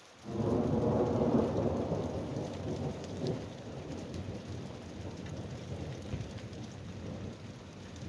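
A thunderclap breaks about a third of a second in and rumbles away slowly over several seconds, over steady rain.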